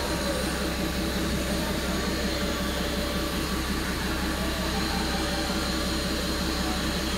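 Metre gauge DMU's diesel engine idling with a steady drone during refuelling.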